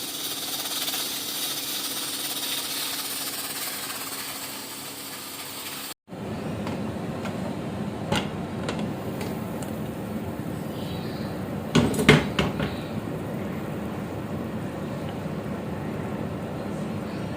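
Pressure cooker hissing out steam, an even hiss, for about six seconds. After that comes a steady lower noise with a few light metal clicks, then a quick run of loud metal clanks about twelve seconds in, like a pot or cooker lid being handled.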